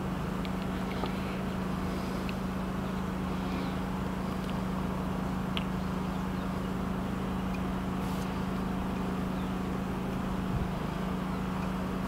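Steady, even machine hum with a few faint clicks of small brass fittings being handled.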